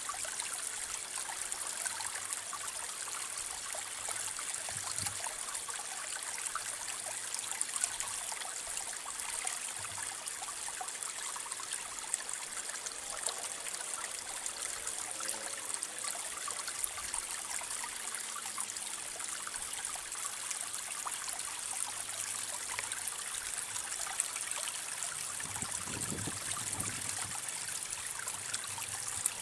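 Steady outdoor background hiss, strongest high up, with a brief low rumble near the end.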